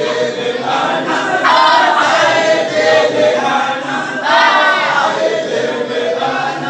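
A group of men chanting together in unison, the sung litany of a Sufi wadifa (dhikr), in long rising and falling phrases.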